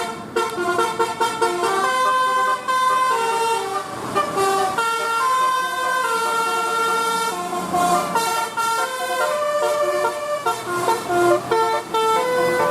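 Basuri telolet bus horn playing a tune: several horn trumpets sounding steady notes together, stepping from pitch to pitch every fraction of a second.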